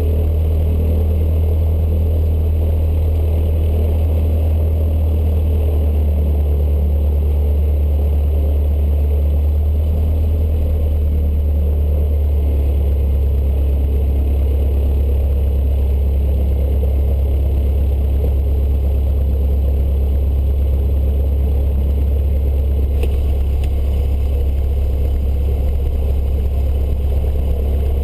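Cessna 152's four-cylinder Lycoming O-235 engine and propeller running at low taxi power, a loud, steady low drone heard from inside the cockpit. About halfway through the engine note steps up slightly.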